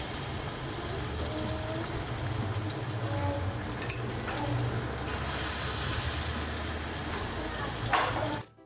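Batter-coated prawns deep-frying in hot oil, a steady sizzle with one sharp click about four seconds in; the sizzle cuts off abruptly near the end.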